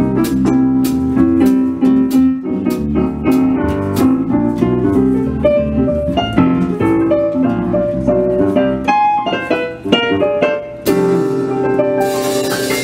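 Roland RD-700 stage piano playing quick runs of jazz notes over an electric bass line. Near the end a note is held and rings.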